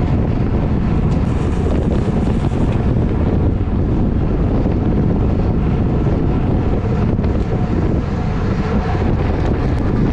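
Wind rushing over the microphone of a GoPro carried on a racing bicycle at speed: a loud, steady rumble of buffeting noise.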